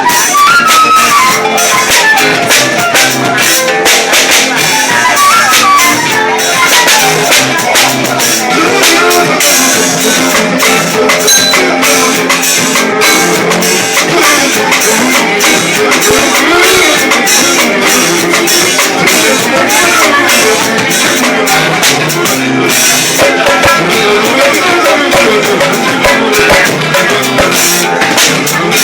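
Live northeastern Brazilian pife band music: a cane fife plays a fast melody of running up-and-down phrases over steady, busy hand percussion.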